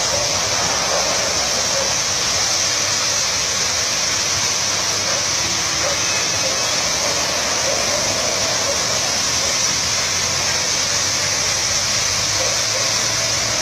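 Automatic car wash gantry spraying high-pressure water jets over a car: a steady, high hiss of water.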